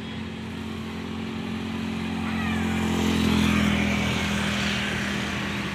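A tour bus passing close by, its diesel engine running steadily. It grows louder to a peak about three and a half seconds in, then eases off.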